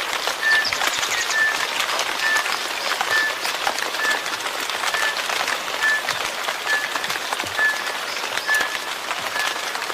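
Steady rain falling, a dense patter of drops on a surface. A short high chirp repeats about once a second throughout.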